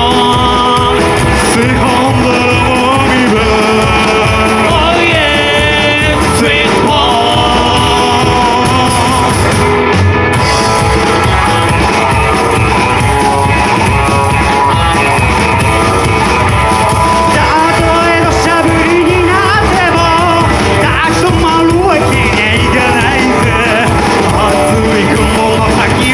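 Rockabilly band playing live, a singer's voice over the band, with a steady beat throughout.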